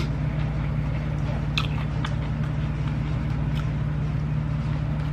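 A steady low hum, with a few faint clicks and mouth sounds of someone biting and chewing food.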